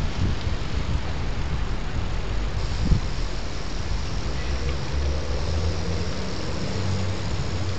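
Wind buffeting the microphone and a low road rumble while riding a bicycle along a city street, with a single bump about three seconds in. From about halfway through, a steady low engine hum from a nearby vehicle joins in.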